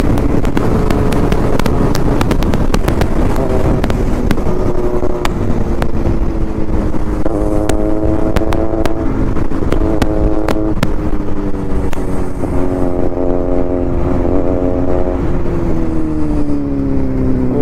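Bajaj Pulsar 220F motorcycle engine running at speed on the road, heard from onboard with wind noise on the microphone. The engine note sags slowly and drops further near the end as the bike eases off.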